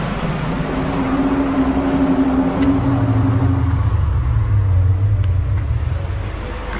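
Loud low drone of the 'strange sounds in the sky' kind: one held humming tone that gives way about three seconds in to a deeper one, its source unexplained.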